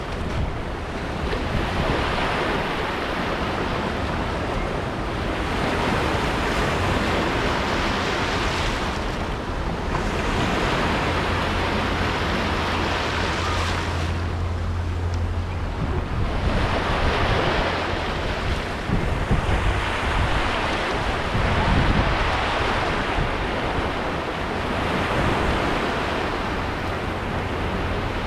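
Small sea waves washing in over sand and rocks, each wash swelling and fading every few seconds, with wind rumbling on the microphone.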